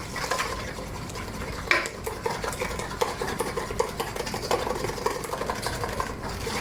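Wire whisk beating thick buttermilk pancake batter in a bowl, a quick, steady run of clicking and scraping strokes as the wet and dry mix are combined.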